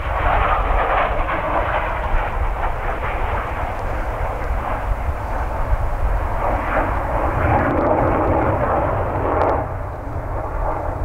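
Low-flying F-15 fighter jet passing, its twin turbofan engines giving a loud, dense rush of jet noise that holds and then drops off sharply about nine and a half seconds in.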